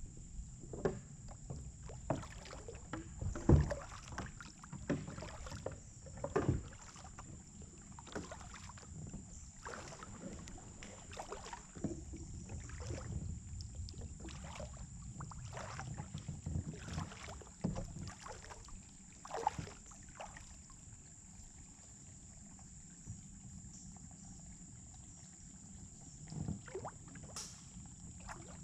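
Kayak paddle strokes in calm river water: the blades dip and splash irregularly, roughly one stroke a second. The strokes fall away for several seconds about three quarters of the way through, and a couple more come near the end.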